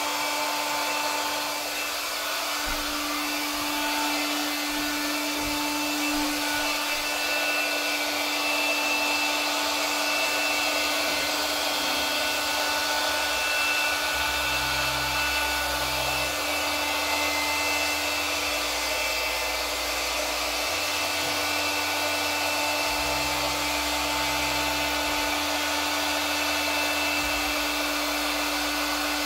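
Electric hot-air blower running steadily: an even rushing airflow with a constant hum underneath.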